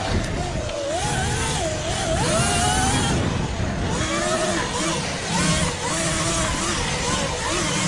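Sur-Ron Light Bee X electric dirt bike being ridden hard on a sand track: the electric motor's whine rises and falls with the throttle over a heavy low rumble.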